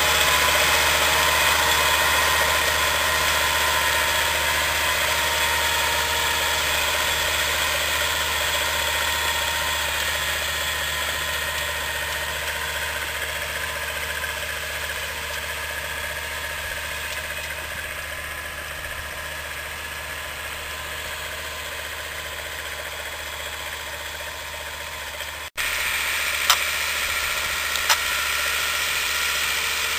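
SAME Laser 100 tractor's diesel engine running steadily under load as it pulls a disc plough, slowly fading as it moves away. About 25 seconds in, a cut brings the engine back at a steady level, with two sharp clicks near the end.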